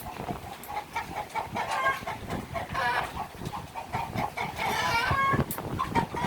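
A flock of chickens clucking and squawking, many short calls from several birds overlapping.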